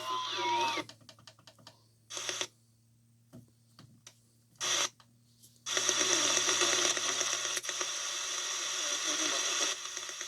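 Shortwave radio receiver between signals: a gliding whistle at the start gives way to a run of clicks and three short bursts of noise, then about halfway in a steady hiss of static comes in over a low hum.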